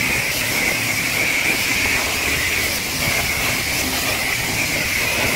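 High-pressure washer wand spraying water onto a muddy dirt bike: a loud, steady hiss of the jet with a strong high tone in it.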